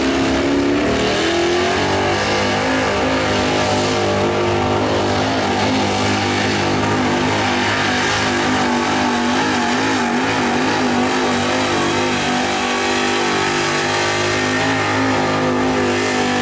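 Vintage pickup truck's engine held at high revs under heavy load while pulling a weight-transfer sled. The pitch dips briefly about a second in, climbs, and then holds steady with a slight wavering.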